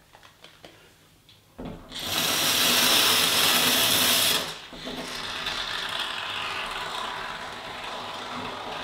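Aerosol can of Dow Big Gap Filler expanding polyurethane foam being sprayed through its straw into a hole in a hollow-core door. After a quiet start there is a loud hiss for about two and a half seconds, then a softer hiss that carries on.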